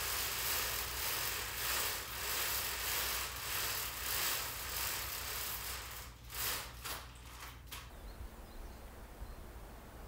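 Pleated fabric window blind being raised by hand: a rustling, sliding hiss that swells and fades about once a second, then several short clicks a little past the middle. It goes quieter near the end.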